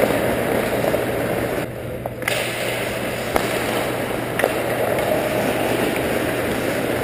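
Ice hockey game sound at rink level: skates scraping and carving the ice, with a few sharp knocks of sticks and puck, over a steady hum and rink noise. The sound drops briefly about two seconds in.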